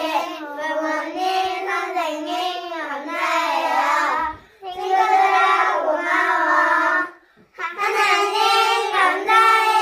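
A small group of young children singing together, three phrases with short breaths between them, the last note held long.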